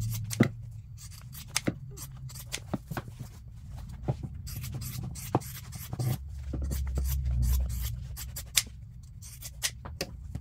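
Scissors snipping off the seam allowance along a sewn seat-upholstery panel: a run of irregular sharp snips. A low rubbing is heard as the panel is handled.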